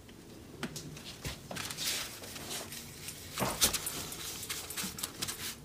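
Gloved hands wiping antique gel stain onto a leather knife sheath with a paper towel: irregular rustling and scuffing, with a louder knock about three and a half seconds in.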